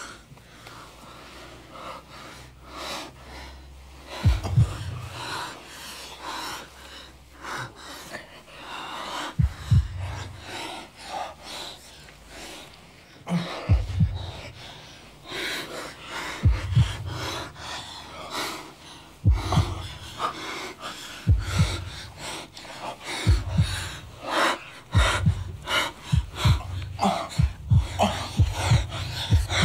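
A woman's heavy breathing and gasps during lovemaking, over deep heartbeat thuds. The thuds come every few seconds and come faster and faster in the last few seconds.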